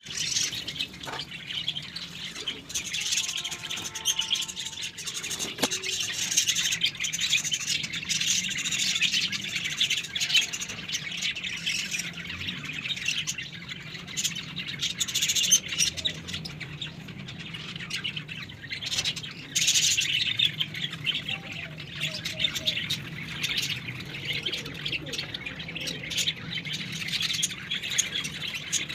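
Many small birds chirping and twittering continuously, with a squawk here and there.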